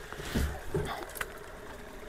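A long-handled tool digging into waterlogged leaf litter and mud in shallow water: two dull thumps in the first second, then a few light clicks over a faint wash of water noise.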